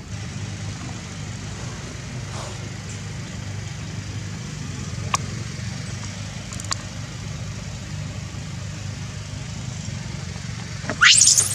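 A steady low motor-like hum with a few faint clicks, then near the end a baby macaque breaks into loud, shrill screeching.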